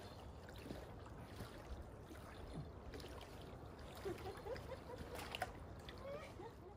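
Faint lakeshore ambience: a steady low rumble of wind with light water sounds, and a few small clicks and knocks a little over five seconds in.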